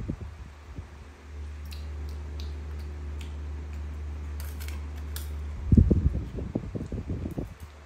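A monkey eating boiled corn kernels by hand: faint clicks of chewing, then a run of low bumps and rustling near the end as it handles the kernels. A steady low hum runs underneath.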